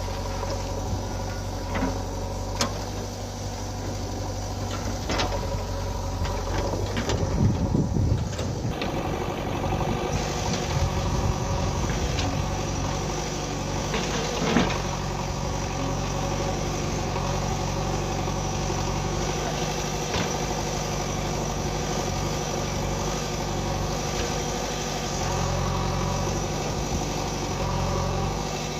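Diesel engine of a JCB 3DX Eco backhoe loader running under work, its pitch shifting up and down as it is throttled, with a few short knocks and a rougher, louder stretch about eight seconds in.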